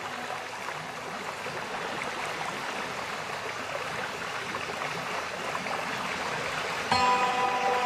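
Background soundtrack of flowing-stream water sound: a steady rushing, water-like hiss. Near the end a held chord of several sustained music notes comes in and the sound gets louder.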